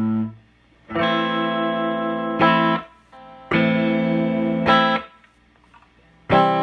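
Electric guitar notes played through a Sears Silvertone Twin Twelve 1484 tube amp with only one of its speakers connected: picked notes in twos, each pair stopped short with a pause between, and a new note struck near the end. The speaker adds a slight distortion, milder than in the other speaker, which the owner suspects lies in the speaker itself.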